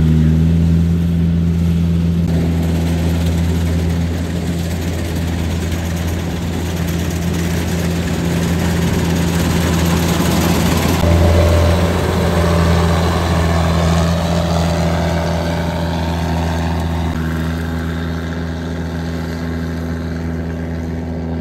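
Kubota 93 combine harvester running steadily while it cuts and threshes rice: a constant low diesel engine drone under the noisy rush of the header and threshing machinery. The rush swells about halfway through, then eases.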